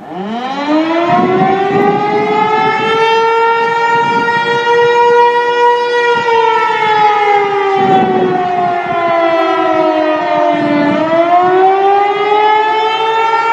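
Outdoor warning siren winding up from a stop to a steady high pitch over about two seconds, holding it for a few seconds, then sliding slowly down in pitch and winding back up near the end.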